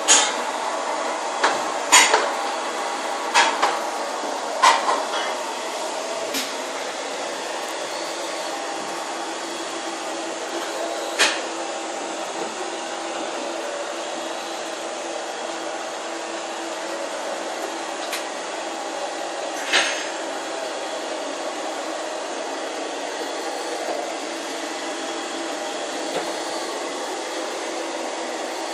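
Household vacuum cleaner running with a steady hum, broken by sharp knocks, several in the first six seconds and a few more later.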